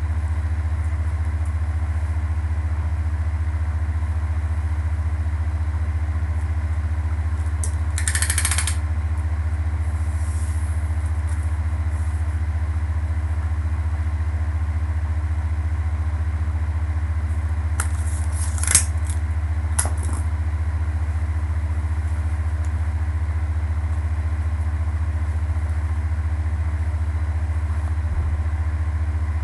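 A steady low hum, loud and unchanging throughout, with a short rustle about a third of the way in and two sharp clicks a little past the middle.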